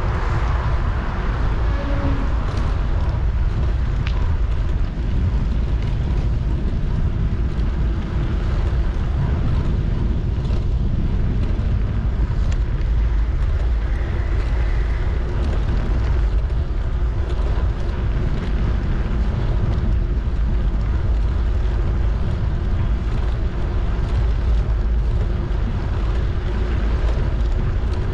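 Steady low rumble of wind buffeting an action camera's microphone on a moving bicycle, with the tyres rolling over paving stones.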